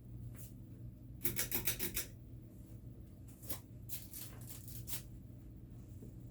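Hampton Bay Clarkston II ceiling fan motor running on medium speed with a steady low hum. About a second in comes a short burst of rapid rubbing strokes, followed by a few scattered scrapes and clicks.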